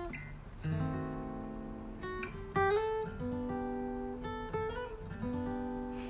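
Background music on acoustic guitar: plucked notes and strummed chords ringing out one after another.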